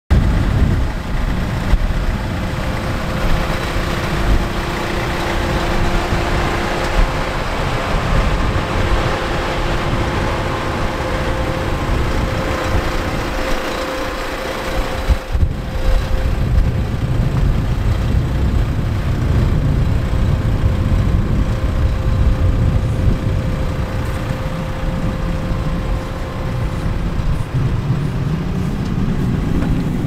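Renault Master van's 2.3 dCi diesel engine idling with a steady hum, under an uneven low rumble.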